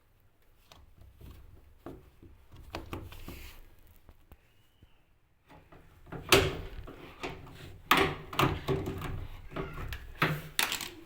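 Irregular knocks, clicks and clunks of things being handled and set down, sparse at first and then louder and busier from about halfway through, over a low rumble.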